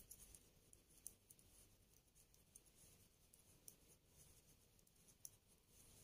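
Faint, scattered light clicks of metal knitting needles as a row of purl stitches is worked in yarn; otherwise near silence.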